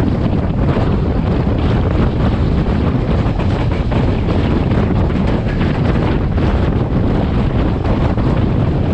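Heavy wind buffeting the microphone held out of a passenger train running at speed, over the train's steady running noise.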